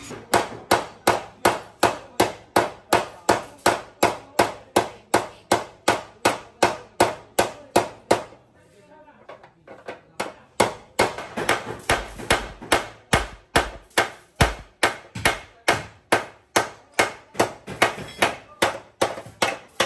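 Hand hammer beating on steel car-body frame metal, about three blows a second: cold straightening of a crash-bent frame rail. The blows stop for about two seconds near the middle and then start again.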